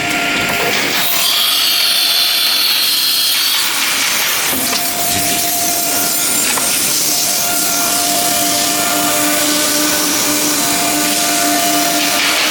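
Nesting CNC router cutting wood: a steady hissing cut over the spindle's whine, whose tone drops out and returns several times.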